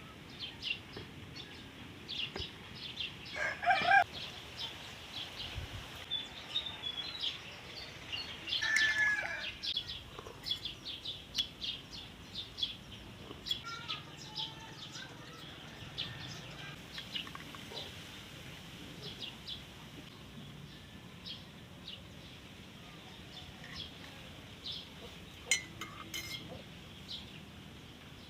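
Domestic chickens calling, with two louder calls about four and nine seconds in, over frequent short high bird chirps.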